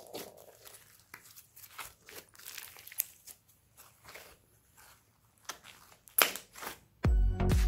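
Thick pink slime being squeezed and kneaded by hand, giving irregular wet clicks and small pops as air pockets burst, with a sharper pop about six seconds in. Loud electronic music starts near the end.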